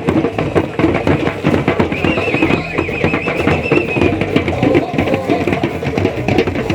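Rapid, dense drumming, with a wavering high-pitched note for about two seconds near the middle.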